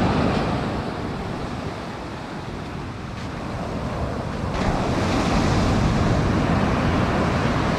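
Ocean surf breaking and washing up a sand beach, with wind rumbling on the microphone. The wash swells louder from about halfway through.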